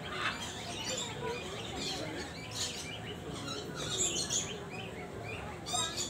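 Many birds chirping at once, a dense chatter of short, overlapping calls, with a quick run of chirps near the end.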